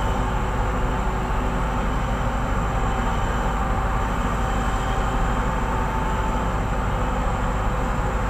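Hitachi EX2600 mining excavator and a haul truck running together: an even, unbroken diesel drone with a deep rumble and a few steady whining tones.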